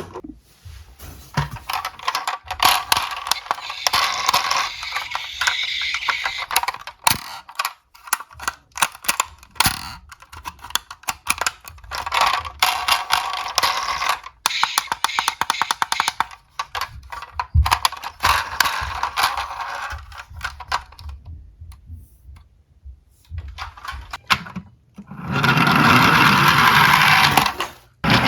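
Small die-cast toy cars rolling down a slope, their wheels rattling and the cars clicking and clacking against the track and each other in quick irregular bursts. Near the end comes a louder, steadier stretch of rolling rattle lasting a few seconds.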